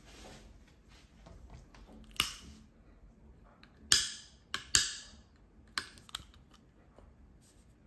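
A long gas torch lighter being clicked to light its flame: about six sharp clicks, the loudest about two seconds in and around four to five seconds in, several of them followed by a short fading hiss of gas.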